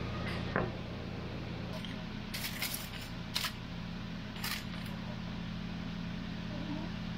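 Eating at a restaurant table: a steady low machine hum, with a few short, light clinks and clatters of tableware and chopsticks in the middle.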